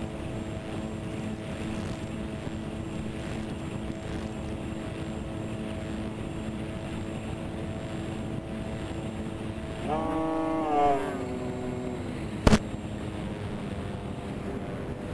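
Electric motors and propellers of a twin-motor Multiplex TwinStar RC plane humming steadily in flight over a rush of air noise. About ten seconds in the whine jumps up in pitch as the throttle is opened, then steps back down over a couple of seconds, and a moment later a single sharp click is the loudest sound.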